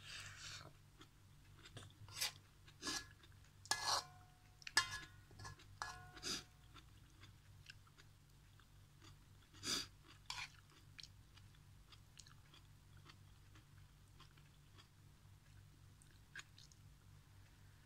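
Close-up mouth sounds of a person chewing instant noodles and greens, with a metal spoon clinking and scraping against an aluminium wok, some strikes leaving a short metallic ring. Most of the clicks fall in the first six or seven seconds, with one loud one near ten seconds, then only faint ticks.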